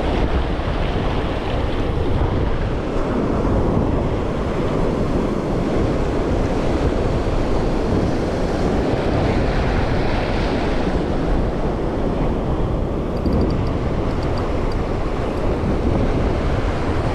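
Ocean surf washing over a rocky reef, with wind buffeting the microphone: a steady, loud rush.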